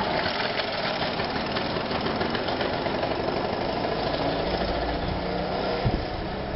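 Solex 5000 moped's small two-stroke engine running at a steady level as it rides past, with a slight dip about six seconds in. The engine is on a test run with a smaller air jet fitted in the carburettor after an air leak at the fuel hose was fixed.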